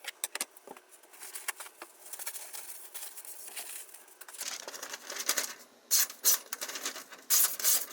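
Knife blade making short, hissy scraping strokes, several in quick succession and louder in the last couple of seconds.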